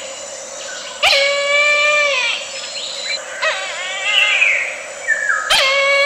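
Brahminy kite calling: long, drawn-out 'pee-aa-aa' cries about every two seconds. Each call sweeps up quickly, holds its pitch, then slides down at the end.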